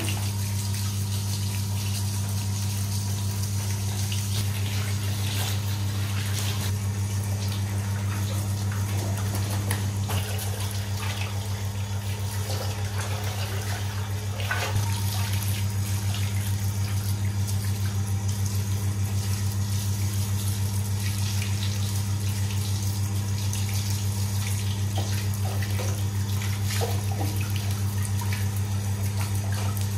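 Water running from a hose into a plastic basin and over a wet puppy's coat, splashing steadily. A steady low hum sounds under the water throughout.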